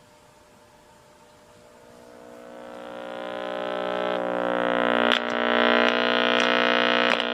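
Graymark 511 regenerative tube radio's speaker giving a steady mains hum that swells up over a couple of seconds after switch-on, with a few sharp clicks near the end. It is just hum: the owner blames the two missing electrolytic capacitors, which need to be put back in.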